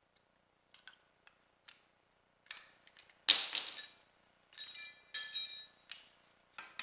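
Metal clinks and knocks as the front brake caliper and pads of a 2003 Yamaha R6 are handled and fitted back over the brake disc. A few of the knocks ring briefly; the loudest comes about three seconds in.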